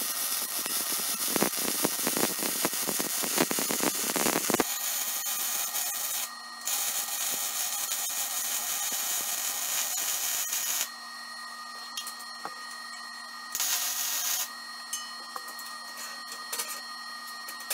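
Wire-feed welder arc welding quarter-inch-wall steel tubing: a steady hiss full of sharp crackles and spatter, in three beads. The first is long and the most crackly, the second follows after a brief stop and runs about four seconds, and the last is a short burst of about a second. A steady low hum and light ticks remain between the beads.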